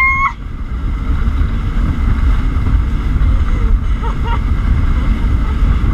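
Jet ski running at speed, with heavy wind buffeting on the microphone and water rushing past. A woman's short high laughing squeal right at the start, and a brief vocal sound about four seconds in.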